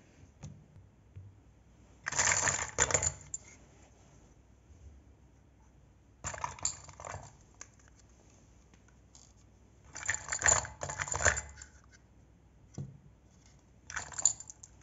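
Small hard pieces clattering and clicking in four short bursts of about a second each, with quiet between them.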